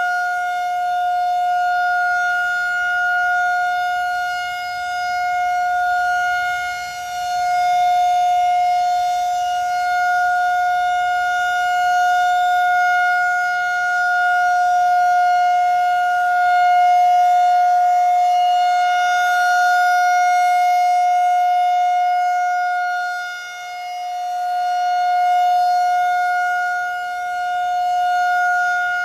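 Federal Signal 2001-SRN DC "Roundback" outdoor warning siren sounding its steady alert signal, one held tone of about 750 Hz with no rise or fall in pitch. Its loudness swells and dips slowly as the rotating siren head turns toward and away, with deeper dips twice.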